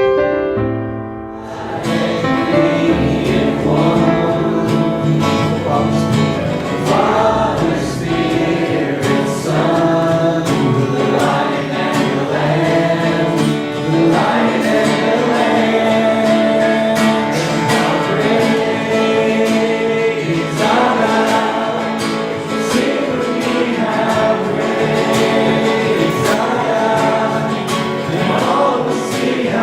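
Gospel-style worship music: a group of voices singing together over a band with guitar and a steady beat.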